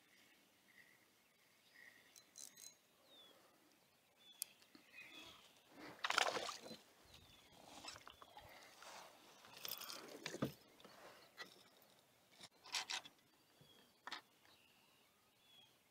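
A hooked bass splashing at the surface beside a kayak and being scooped up in a landing net, in a few irregular bursts of splashing and water noise, the loudest about six seconds in. Near the end come a couple of short sharp knocks as the fish is handled in the kayak, with faint bird chirps in the background.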